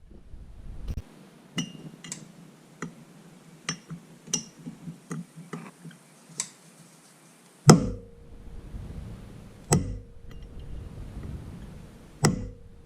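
Light metal clinks of tools and parts being handled, then three hard hammer blows on a punch, each leaving a short metallic ring: staking metal down into the flat spot on the crankshaft to lock it.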